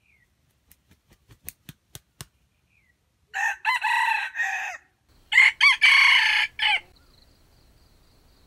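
Red junglefowl crowing twice, each crow lasting about a second and a half, the second louder. A quick run of about eight sharp clicks comes before the crows.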